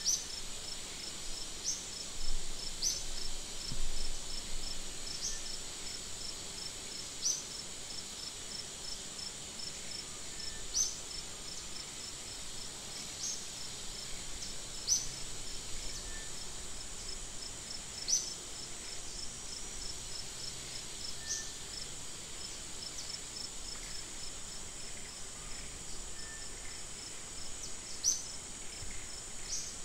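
Insects calling: a steady high-pitched buzz carrying a fast, even pulse, with a short sharp high chirp every couple of seconds.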